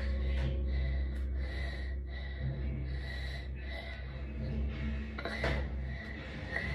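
A child breathing audibly through a stuffy nose, in soft repeated breaths, with one louder breath about five and a half seconds in, over a steady low hum.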